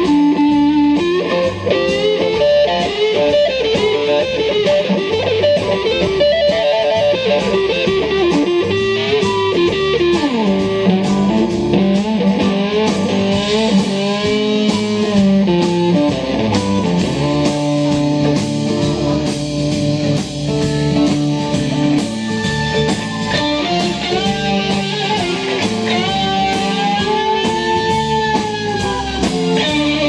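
Live blues-rock band: a Les Paul-style electric guitar plays a lead line of held notes with several bends, over drums.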